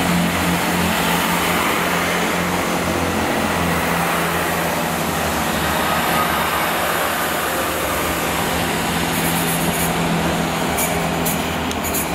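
GWR Networker Turbo diesel multiple unit running past through a station, its diesel engines giving a steady low hum under the rumble of wheels on the track. A run of sharp clicks comes in near the end.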